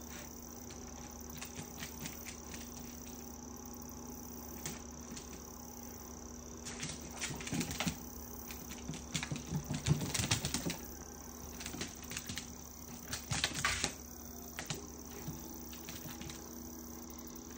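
A small dog's claws clicking and tapping on a laminate floor in scattered flurries, busiest about halfway through, over a steady faint hum.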